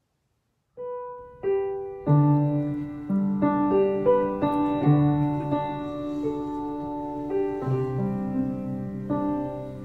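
Acoustic piano playing an introduction: after a moment of silence, two single notes, then sustained chords from about two seconds in.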